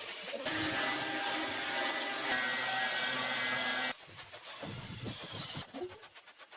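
Carpet cleaning: a steady rushing hiss with a faint whine, typical of a cleaning machine's suction, cuts off abruptly about four seconds in. Quieter scraping and rubbing strokes against the carpet follow.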